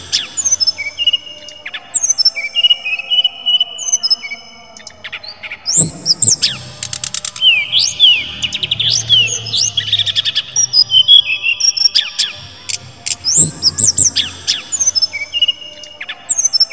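Brown-chested jungle flycatcher (SRDC) singing: a fast, varied run of high chirps, quick rising sweeps and repeated short notes. It comes in bursts with brief pauses, and the longest, busiest phrase falls in the middle.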